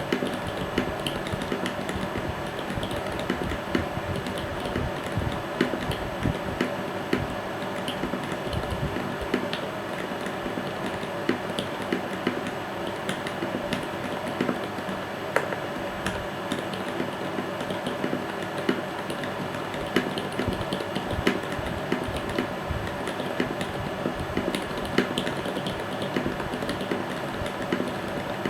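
Vortex Pok3r RGB mechanical keyboard being typed on continuously. It has lubed Gateron Milky Black linear switches in a foam-dampened aluminium case, and its Cherry-profile ePBT keycaps catch on the switch top housing and do not fully bottom out. The keystrokes come as a steady stream of clicks, with a louder stroke standing out about once a second.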